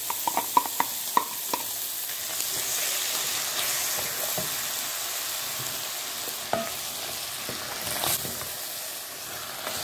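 Ground beef and chopped vegetables sizzling in a frying pan. In the first second and a half a wooden spoon taps several times against a glass bowl as the vegetables are knocked out into the pan. Then steady sizzling as the mixture is stirred, with an occasional knock of the spoon against the pan.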